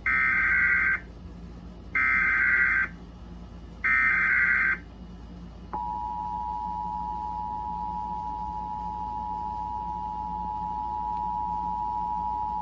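Emergency Alert System broadcast alert: three short bursts of the SAME digital header, a harsh screeching data tone, about two seconds apart, then the steady two-tone EAS attention signal (853 and 960 Hz) starting about six seconds in. It marks the start of a severe thunderstorm warning.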